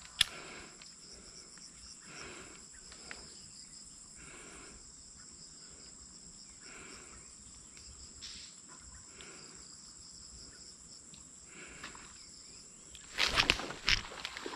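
Insects chirring with a steady, high-pitched drone. Near the end comes a loud burst of clicks and rustling: handling noise.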